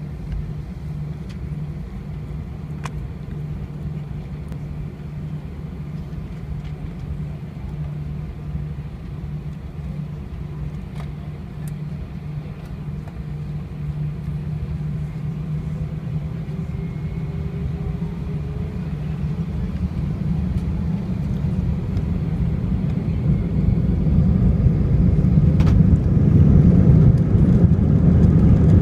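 Airbus A319 jet engines heard inside the cabin as a steady low hum while the plane taxis onto the runway, growing steadily louder over the second half as the engines spool up for the takeoff roll.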